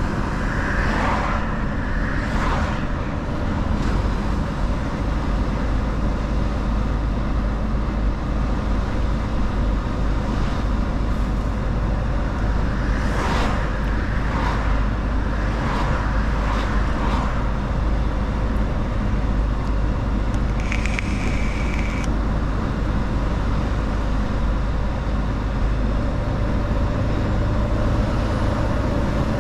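Mercedes-Benz Actros L truck on the move: a steady low engine and road rumble, with a few brief swells of rushing noise. A short high beep lasts about a second, about two-thirds of the way through.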